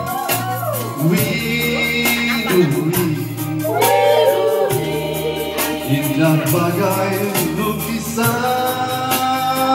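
A singer performing live over a band, with a bass line that changes notes every second or so and a steady drum beat.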